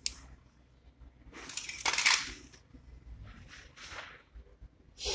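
Caterpillar C9 diesel injector parts handled by hand: a sharp metallic click, then a louder noisy clatter about a second and a half in lasting about a second, a few faint clicks, and another short burst at the end.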